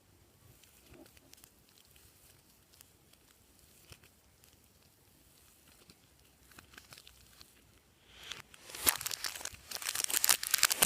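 Faint scattered clicks of handling, then about eight seconds in, dense, loud crinkling and crackling.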